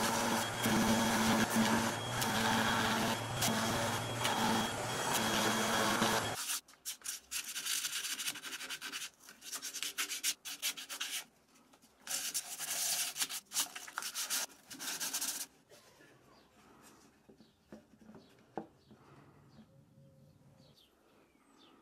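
A power sander runs against the inside of a lime-wood (linden) bowl with a steady hum and rasp, then cuts off suddenly about six seconds in. After that come bursts of hand sanding, abrasive rubbing back and forth on the wood with short pauses, which stop about fifteen seconds in, leaving only faint handling sounds.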